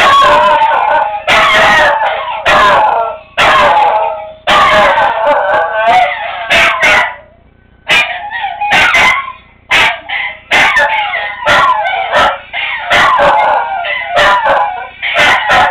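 A dog singing: wavering, gliding howls broken by short yips and barks, in a run of phrases with a brief pause about halfway through.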